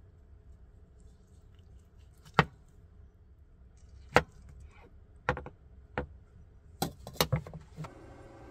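Chef's knife cutting through morel mushrooms and knocking on an end-grain wooden cutting board: about seven sharp, irregular knocks, several close together near the end. A faint steady hiss comes in just before the end.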